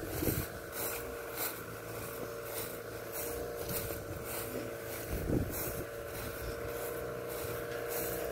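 Delivery truck's engine running with a steady hum as it moves slowly across a field, with the swish of footsteps through dry grass about twice a second.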